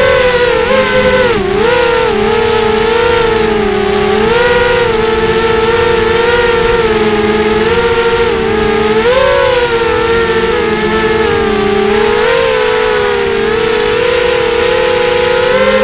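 FPV quadcopter's electric motors and propellers whining loudly as it flies, the pitch dipping and rising with the throttle.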